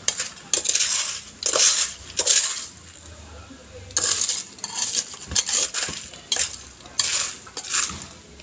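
Popcorn crunching and rustling in short, irregular bursts: handfuls scooped from a glass bowl and eaten.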